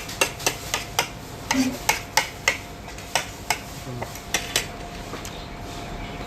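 Cutlery clinking against plates and dishes: about fifteen sharp, irregular clinks that stop about five seconds in.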